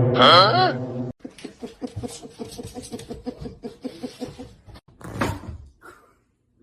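A pet animal making sounds: a loud drawn-out cry that cuts off about a second in, then a fast rhythmic pulsing of about five beats a second, and a short noisy burst near the end.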